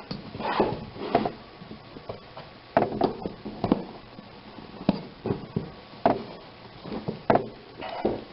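Irregular knocks and rubbing of rubber as an inner tube is pushed back inside a small garden-cart tire on its rim.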